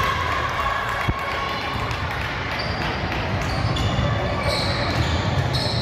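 Basketball being played on a gym court: a ball bouncing, one sharp knock about a second in, and short high squeaks, typical of sneakers on the floor, through the second half. Voices run underneath.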